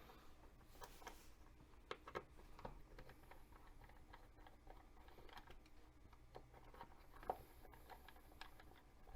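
Faint, scattered small clicks and ticks of hand tools and small metal parts being handled on a workbench, with a sharper click about seven seconds in.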